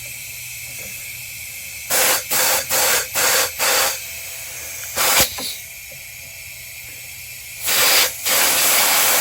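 Compressed air from a blow gun hissing into a snowblower's carburetor in short blasts: a quick run of about five around two seconds in, one more about five seconds in, and two longer blasts near the end, with a fainter steady hiss between them. The air is being used to clear something stuck in the carburetor.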